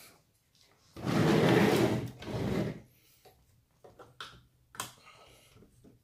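Handling noise as a scale model surfboard is rubbed and slid into the strapped roof rack of an RC truck body: a long scraping rub about a second in, followed by a few light clicks and taps.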